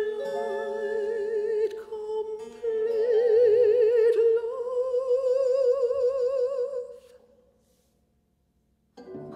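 Chamber opera music: a long held sung note with wide vibrato that slowly climbs in pitch over sustained ensemble tones. It dies away about seven seconds in, and a new held chord enters near the end.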